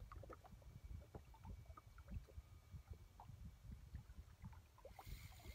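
Near silence: water lapping faintly against a drifting jet ski's hull, small scattered ticks over a low rumble.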